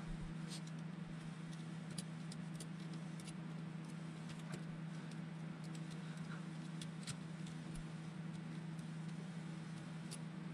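Faint, scattered clicks and light metallic clinks of small tools and bolts being handled while assembling an RC car chassis, over a steady low hum.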